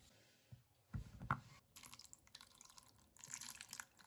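Faint dripping and splashing of water as a snow pear is washed by hand in a basin of tap water, with a soft bump about a second in.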